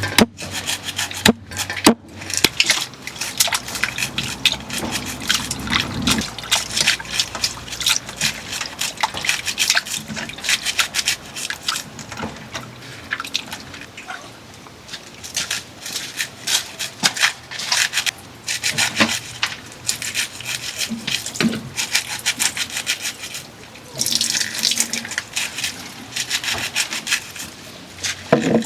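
A knife being sharpened: rapid, repeated scraping strokes of the blade, coming in runs broken by short pauses.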